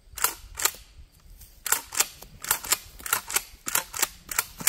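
Pump-action shotgun being racked back and forth over and over, about six cycles of sharp metallic clacks in quick pairs, as the action that has been jamming is tested.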